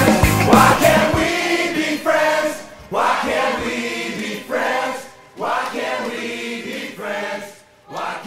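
Music with drums and bass stops about a second in, leaving a group of voices chanting together in short phrases, repeated about every two seconds.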